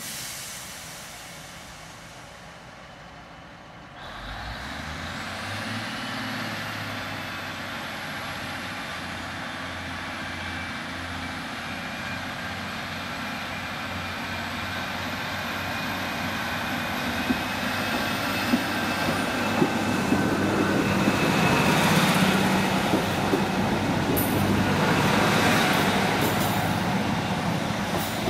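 Class 153 diesel multiple unit running under power as it moves through the station, its diesel engine note building and getting louder over the second half as it nears. A few sharp clicks about two-thirds through.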